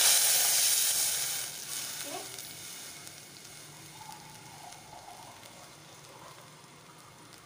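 Water poured into hot oil with cumin seeds in a steel pot, hissing and sizzling loudly at first, then dying down over the next few seconds to a fainter, steady sizzle as the water settles in the pot.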